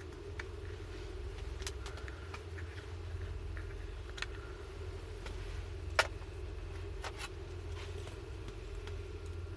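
Burning firewood crackling, with scattered sharp pops, the loudest about six seconds in, over a steady low hum.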